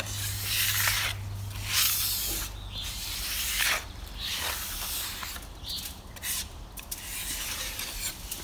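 Large spatula scraping stripper-softened varnish off carved wood in a series of short, irregular scraping strokes. The finish has gone soft under the paint stripper, so it comes away easily.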